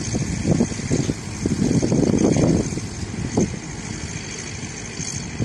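Low, gusting rumble of wind buffeting the microphone, heavier for the first two and a half seconds and then easing.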